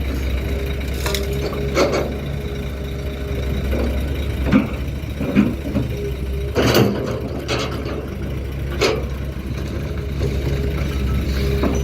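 Excavator handling stone: a diesel engine running steadily, with rocks clattering and crunching in several separate bursts, the loudest a little past halfway.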